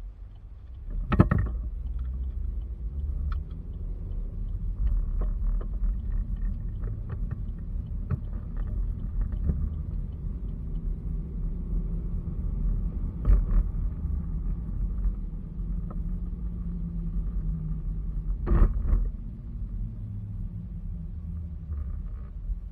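A car's low engine and road rumble heard from inside the cabin as it pulls away and drives on, with three sharp knocks: about a second in, around the middle and a few seconds before the end.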